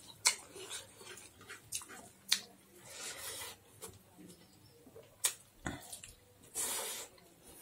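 Eating with the fingers from a steel plate: scattered sharp clicks as fingers work the rice against the plate, and chewing mouth sounds. A couple of longer hissy sounds come about three seconds in and near the end.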